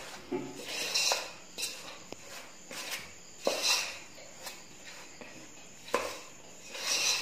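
A hand kneading flour, curd and milk into bhatura dough in a stainless steel bowl: fingers scrape and swish against the steel about every three seconds, with a few sharp clicks in between.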